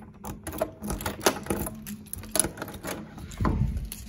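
An irregular run of clicks and knocks as a door with a round metal knob is unlatched and opened, with a dull thump about three and a half seconds in.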